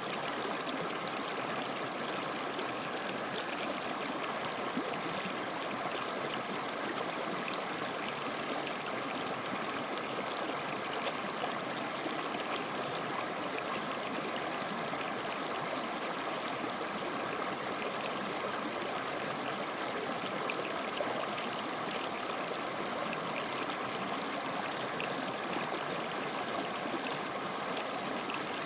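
Mountain river flowing over rocks: a steady rushing and gurgling of water.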